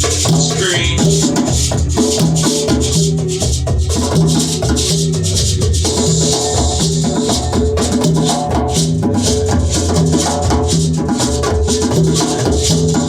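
Music with a steady beat: hand percussion and drums over a repeating bass line.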